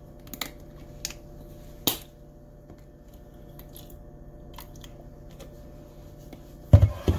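Cap of a plastic balsamic vinegar bottle clicking open, three sharp clicks in the first two seconds, over a faint steady hum. Near the end come two heavy knocks.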